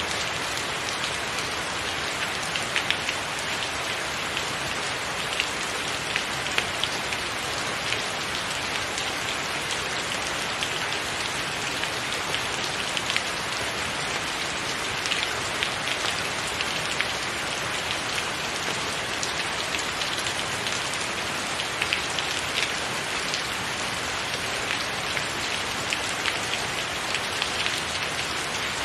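Steady rain: an even hiss with frequent sharp ticks of single drops scattered through it.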